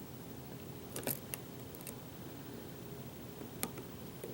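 A few faint, sharp metallic clicks from a lock pick and tension wrench working the pins of a custom challenge lock: a pair about a second in, another just after, and one near the end.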